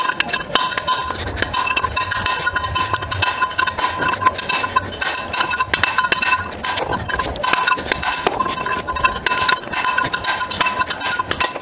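Hammer tapping a brass drift against a bearing in the steel hub of a tank return roller, driving the bearing out. There are rapid, repeated metallic taps, each with a ringing tone from the struck roller.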